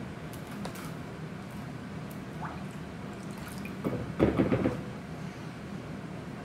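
Kitchen knife cutting a jalapeño pepper open on a countertop to take the seeds out: light clicks and wet squishing, with a louder burst of rapid noise just under a second long about four seconds in.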